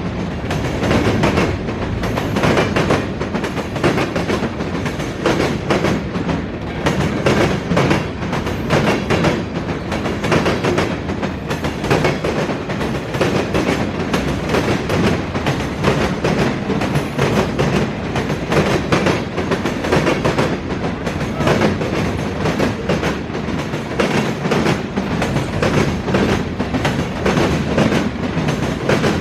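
Freight train cars rolling past, the wheels clacking over the rail joints in a steady, repeating rhythm over a continuous rumble.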